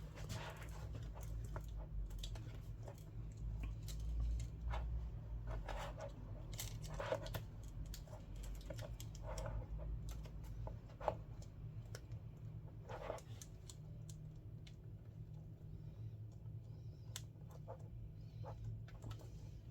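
Scattered small clicks and taps of an iPad's replacement screen and repair tools being handled while the screen is fitted into alignment, over a steady low hum.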